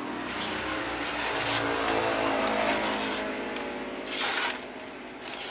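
A sharp kitchen cleaver slicing through sheets of printed paper, with short papery swishes about a second and a half and about four seconds in, over a steady motor hum.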